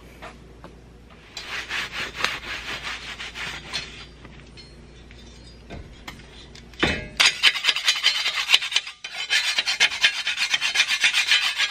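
Hand scraper rasping quickly back and forth over plasma-cut steel plate, clearing slag: a few seconds of strokes about a second in, then a longer, louder run of fast strokes from about seven seconds in, broken by a short pause near nine seconds.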